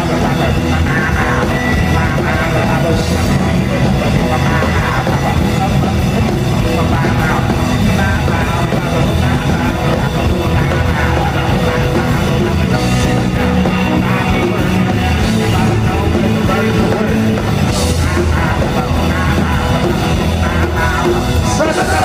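Live rock band playing loud and fast: twangy electric guitars, bass and a drum kit with a driving beat, heard through a club's PA.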